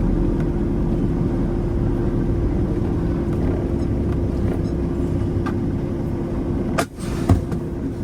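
Semi truck driving down the road: a steady engine drone with low road rumble. About seven seconds in the noise drops briefly and a couple of sharp clicks sound.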